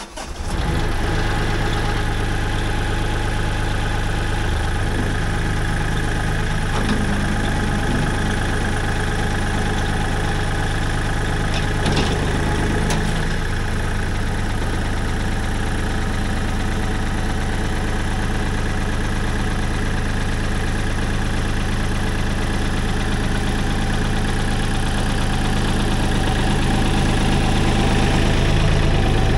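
Tractor engine running steadily, getting slightly louder near the end.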